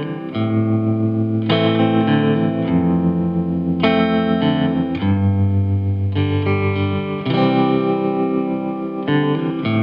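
Music: a guitar played through effects, its chords changing about once a second.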